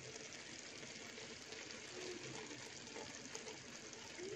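Faint steady hiss of a large pot of chicken and rice kabsa steaming and sizzling on very low heat.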